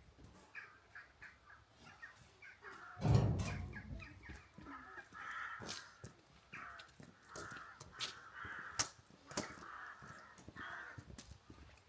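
Birds calling repeatedly in short, harsh calls, with a loud low rumble about three seconds in.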